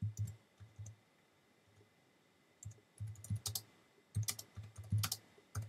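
Typing on a computer keyboard: a few keystrokes, a pause of about a second and a half, then a quicker run of keystrokes over the last three seconds.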